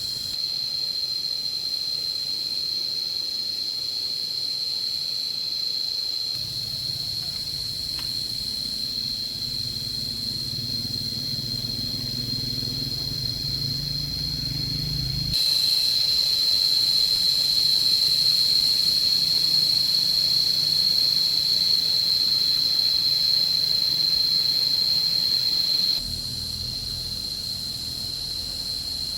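Steady high-pitched insect chorus droning without a break, its level jumping abruptly louder or softer a few times, with a low hum underneath for a stretch in the first half.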